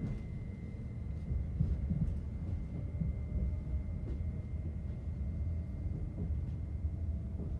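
Passenger-cabin ambience of an SOB Traverso (Stadler FLIRT RABe 526) electric multiple unit: a deep steady rumble and hum with a thin, steady high-pitched whine over it.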